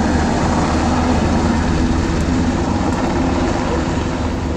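UH-60 Black Hawk helicopter in flight, a loud, steady drone of rotors and engines.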